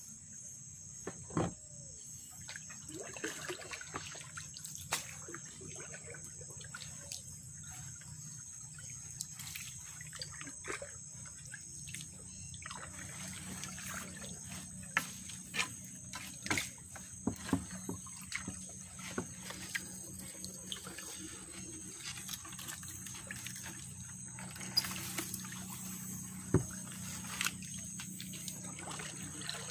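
Water trickling and splashing as a gillnet is pulled from a wooden canoe and laid into the water, with scattered short knocks and rustles of the net and branches against the boat.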